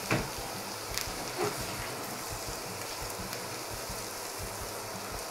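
Diced onion sizzling steadily in olive oil in a stainless steel frying pan as it is stirred with a silicone spatula, with a few short scrapes of the spatula against the pan in the first second and a half.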